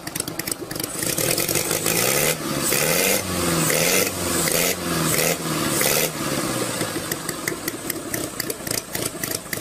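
Miniature working model internal-combustion engine running: revved up and down several times in the first half, then settling into a fast, even idle with a rapid ticking beat.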